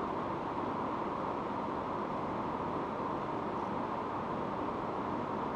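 Steady room noise: an even hiss with no distinct events.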